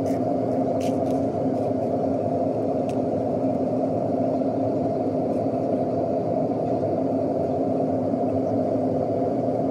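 Steady cabin noise inside a jet airliner on its descent: the engines and rushing air give an even rumble with a steady hum through it.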